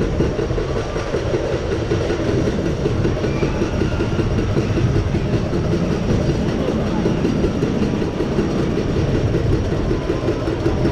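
Roller coaster train being hauled up a chain lift hill: the lift chain runs under the cars and the anti-rollback dogs clatter rapidly and steadily, over a low rumble.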